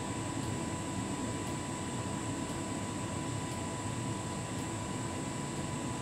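Hotpoint heat pump tumble dryer running near the end of its anti-allergy programme: the drum turning laundry with a steady machine hum and a thin, high, steady tone.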